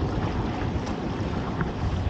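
Wind buffeting the microphone on a small open boat in rough weather, with the wash of the sea. The noise is steady and even, without engine or voice.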